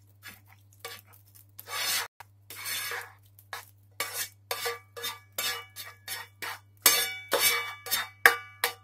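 Metal utensil scraping and knocking against a frying pan as sautéed mushrooms, onion and turkey are scraped out into a bowl. A run of quick scrapes and clinks, about two a second in the second half, the last few ringing briefly.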